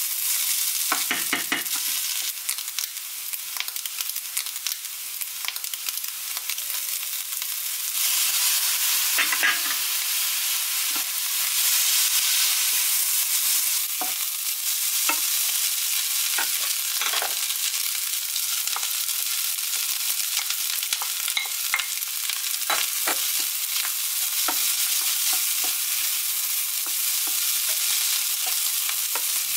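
Fried rice sizzling in a frying pan while a wooden spoon stirs and scrapes it, with frequent light knocks of the spoon against the pan. The sizzle grows louder about eight seconds in.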